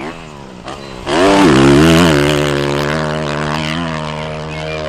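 Dirt bike engine revving hard under load while climbing a hill. A lower engine note comes first, then about a second in the revs sweep up and hold high, slowly fading.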